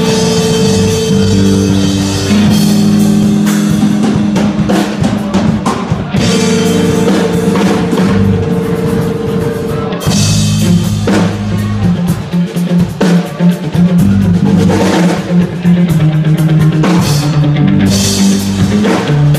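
Live rock band playing an instrumental passage: electric guitar and bass guitar through amplifiers over a full drum kit, with held guitar notes and steady drumming.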